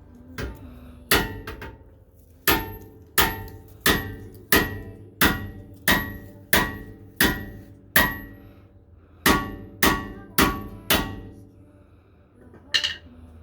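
Hammer blows on a stuck brake rotor, each strike ringing like metal: a run of evenly paced blows about one and a half a second, a short pause, four more, then one last blow near the end.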